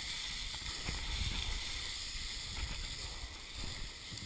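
Footsteps scuffing and sliding on loose rocky scree down a steep slope, with irregular low thuds and clothing rubbing over the body-worn camera.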